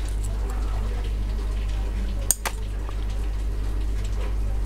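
Scissors snipping a small steel coil spring to length: a sharp metallic double click about halfway through, with a few faint ticks of handling, over a steady low electrical hum.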